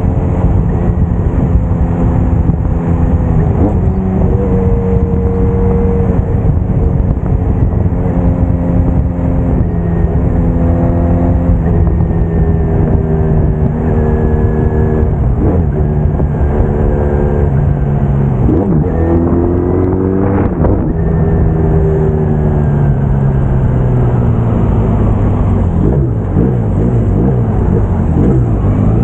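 Braaap Moto4 sportsbike engine running under way. Its note rises and drops in steps as it goes up and down through the gears, under heavy wind noise on the microphone. In the last few seconds the engine note falls as the bike slows.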